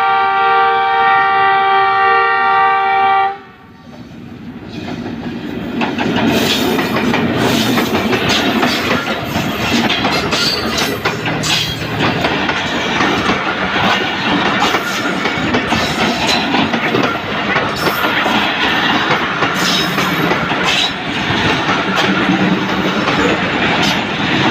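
A Pakistan Railways diesel locomotive sounds one long horn blast of several tones together, which stops about three seconds in. The train then runs through the station without stopping: the rumble builds over a couple of seconds, and the passenger coaches rush past with steady rattling and the clickety-clack of wheels over rail joints.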